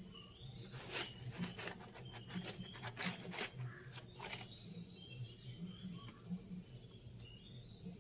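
Small birds chirping faintly, short rising chirps repeating throughout, over a low hum. A run of sharp clicks and taps, the loudest sounds, falls in the first half.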